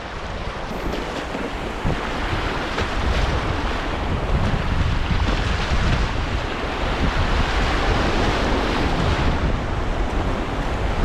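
Whitewater river rapids rushing steadily, with wind buffeting the microphone.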